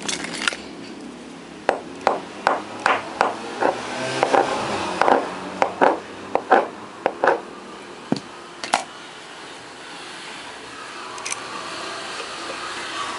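Irregular sharp clicks and taps of small hard objects being handled on a workbench, about fifteen in six seconds, then one more a second later, over a steady hiss.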